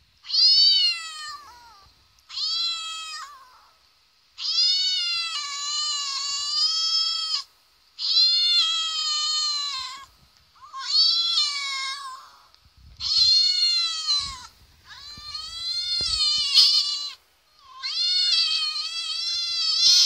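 A cat meowing: eight long, drawn-out meows in a row, each one to three seconds long, with short pauses between them.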